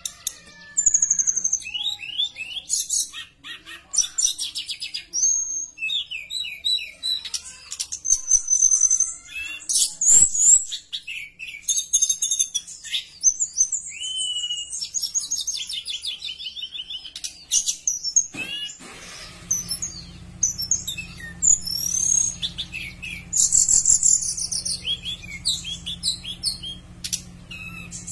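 Caged blue flycatcher (tledekan) singing a long, varied run of high whistled notes and trills, many sliding up or down in pitch.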